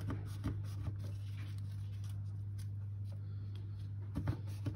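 Kitchen knife cutting through layers of dry, buttered filo pastry in a metal baking tray: scattered light crackles and taps, a few early and a cluster near the end, over a steady low hum.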